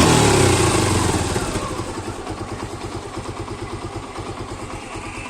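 Suzuki Gixxer 150's single-cylinder engine, with a new cam chain and tensioner adjuster fitted, revs briefly and falls back over the first second or two to a steady, evenly pulsing idle.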